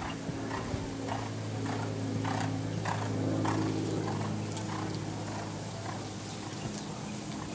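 A horse's hoofbeats in a regular canter rhythm on sand arena footing, a little under two beats a second. Under them runs a steady low hum.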